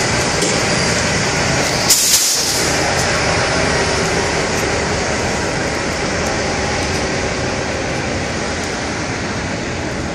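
Steady rumble and rush of a semi truck being fuelled with diesel at a truck-stop pump, with idling heavy engines mixed in. A short hiss cuts in about two seconds in.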